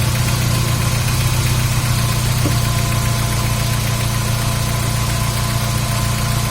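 Car engine idling steadily, with one faint tap about two and a half seconds in.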